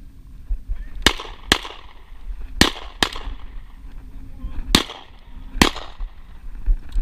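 Six shotgun shots, fired in three quick pairs, each with a short echo: hunters shooting at flushing wild quail.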